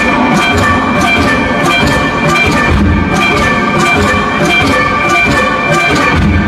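Loud electronic music played live from DJ decks through a venue sound system: a steady beat of low kick-drum pulses and regular high percussive ticks under sustained high melodic notes.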